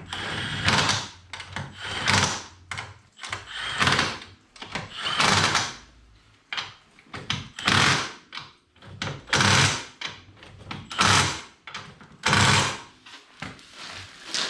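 Power tool, most likely an impact wrench on wheel lug nuts, run in about eight short bursts, roughly one every second and a half.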